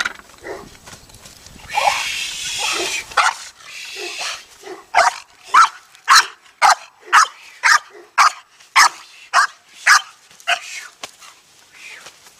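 Dog barking in a fast, even run of about two barks a second, starting about five seconds in, with a few shorter calls before it. A burst of noise comes about two seconds in.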